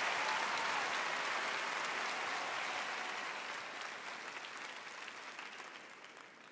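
Studio audience applause, dying away steadily over several seconds.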